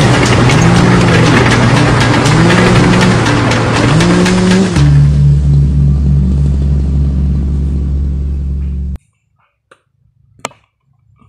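Loud background music: a song whose melodic line gives way about five seconds in to a long held chord, which cuts off suddenly about nine seconds in. After it, only a few faint clicks and taps.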